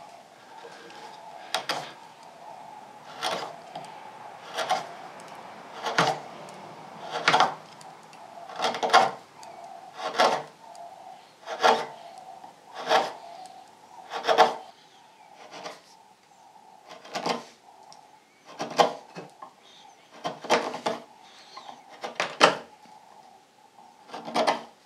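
A chisel cutting a wooden leg on a spring pole lathe: a short scraping cut on each treadle stroke, repeating at a steady rhythm of about one every second and a half. A faint steady hum runs underneath.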